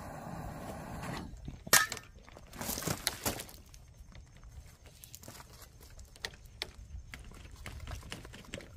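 A handheld power tool runs with a steady hiss and stops about a second in, followed by a sharp clack and a short clatter as the tool is put down on gravel. Faint shuffling and handling noises on the gravel follow as the poly pipe and submersible pump are lifted.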